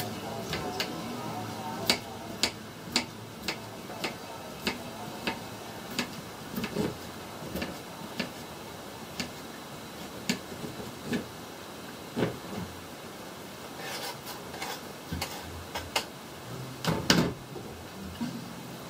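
Kitchen knife chopping vegetables on a cutting board: single sharp chops, about one or two a second and unevenly spaced. Near the end comes a louder clatter as the board is handled.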